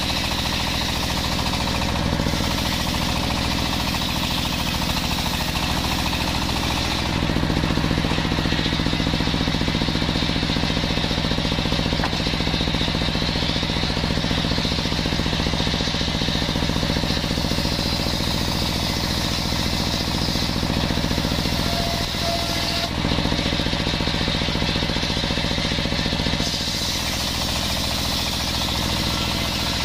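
Large sawmill circular saw running and ripping through beams of jackfruit timber, a loud continuous machine sound with a steady rattling drone whose tone shifts a few times.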